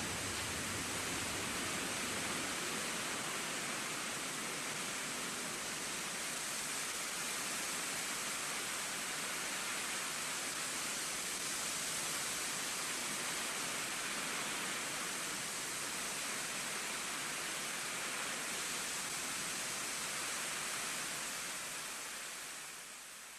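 A steady, even rushing hiss that fades away over the last two seconds or so.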